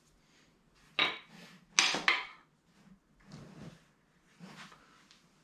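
Metal clinks and knocks from a cam bearing and its installer tool being handled and lined up: a sharp clatter about a second in, two louder knocks just before two seconds in, then softer rubbing.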